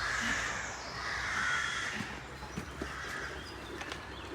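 A bird calling outdoors: three hoarse calls, each half a second to a second long, spaced about a second apart.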